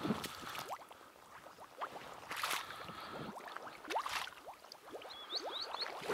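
Water gurgling and sloshing close by, full of short rising bubble-like plinks, with two brief swells of splashing noise. A few quick high chirps come about five seconds in.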